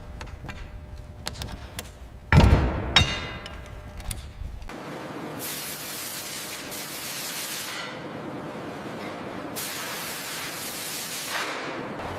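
A few light ticks, then a heavy clank about two seconds in. After that come two long hissing sprays of two to three seconds each.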